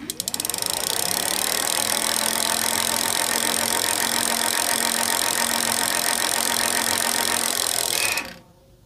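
OZO e-bike kit's rear hub motor spinning the lifted rear wheel up to speed under pedal assist: quick clicks that run together within half a second into a steady mechanical whir with a faint hum, stopping a little before the end.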